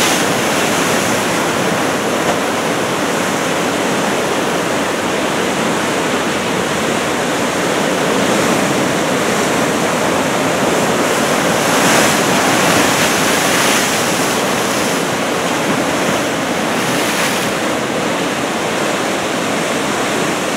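Big typhoon-swell surf breaking continuously, a dense steady wash of noise that swells a little in level now and then.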